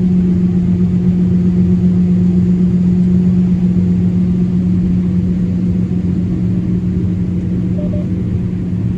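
John Deere S770 combine running steadily while harvesting soybeans: a constant low hum and rumble.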